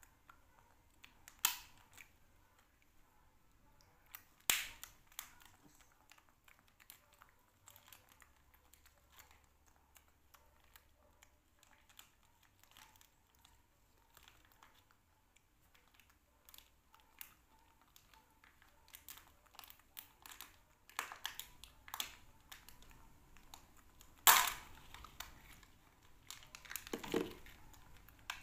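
Scattered light clicks and taps of small plastic car-shaped cases being handled, with a few louder knocks. Plastic wrapper crinkling near the end.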